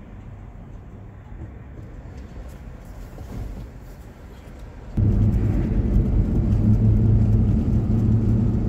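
Car engine and road noise heard from inside the cabin: a quiet steady hum while the car stands still, then, about five seconds in, an abrupt switch to a much louder steady rumble as the car is driving.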